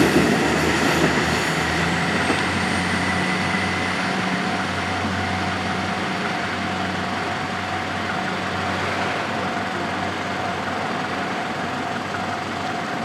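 KiHa 11 series diesel railcar train drawing away after passing: a steady low engine hum that slowly fades, with a thin high wheel squeal dying out in the first few seconds.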